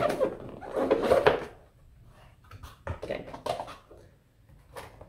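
Cardboard gift box lid being pulled open: a scraping rustle of cardboard for about a second and a half, then quieter rustling and light taps as the open box is handled.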